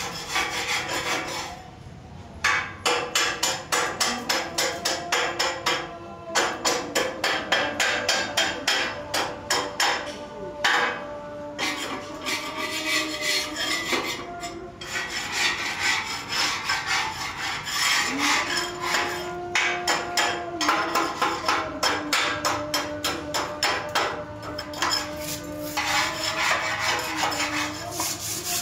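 Rapid hammering on metal, about four strikes a second, in runs broken by short pauses, with the struck metal ringing.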